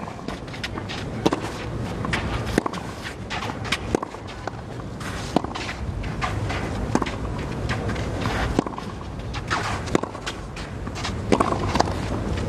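Tennis rally on a clay court: tennis balls struck by rackets, with the strongest hits about every second and a half, among the players' footsteps and sliding on the clay.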